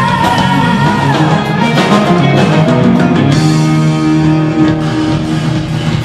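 Rock band playing live on stage: electric bass, Korg CX-3 organ, electric guitar and drum kit. A moving bass line settles into held notes about halfway through.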